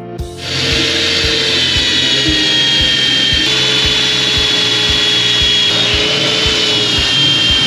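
Corded electric drill starting about half a second in and then running steadily under load, drilling out fasteners in the body of a 1958 MGA by the door opening, its whine wavering slightly in pitch.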